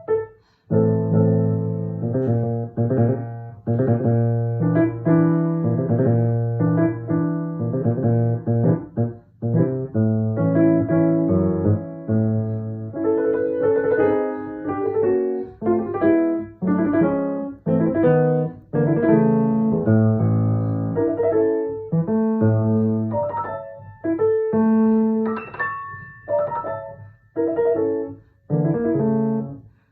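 A piano playing a piece: bass chords under a melody line, with a few brief breaks between phrases.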